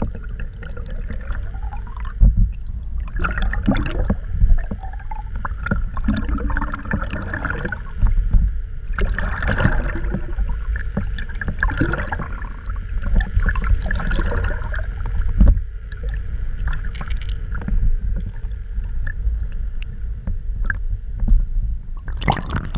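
Muffled sloshing and gurgling of seawater around a camera held just under the surface, with scattered irregular clicks and knocks.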